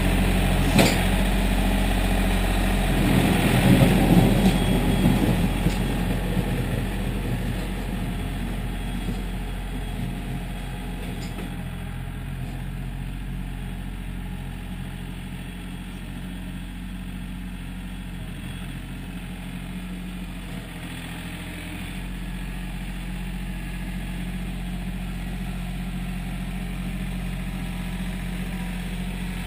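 John Deere 770 compact tractor's three-cylinder diesel engine running, with a louder surge about three seconds in. The engine then fades as the tractor moves away and grows a little louder again near the end as it comes back.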